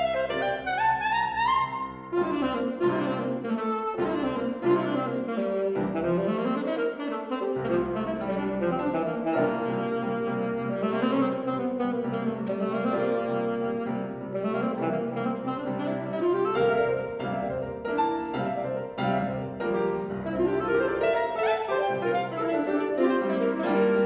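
Alto saxophone and grand piano playing a classical concerto together, the saxophone in fast, swooping runs over busy piano accompaniment without a break.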